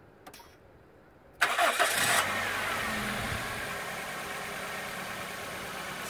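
Toyota 7A-FE inline-four engine starting about a second and a half in with a sudden loud burst, then settling into a steady idle. It runs on newly fitted high-tension ignition leads, replaced to cure a misfire.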